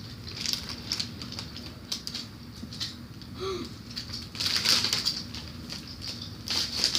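Motorised toy train running along its track: a quick, irregular clicking and rattling, with a higher whir that swells about four seconds in.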